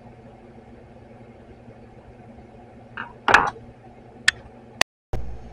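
Small hand tool and aluminium carburettor float bowl handled and set down on a towel-covered workbench: a short clatter of knocks about three seconds in, then two sharp clicks, over a low steady hum. The sound cuts out for a moment near the end.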